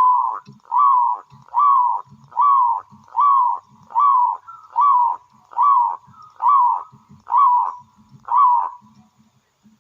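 Zebra dove (perkutut) singing: a rhythmic series of about a dozen short cooing notes, a little more than one a second, that stops near the end. It is the bird's full, active song ("gacor"), the kind used to lure other perkutut into calling.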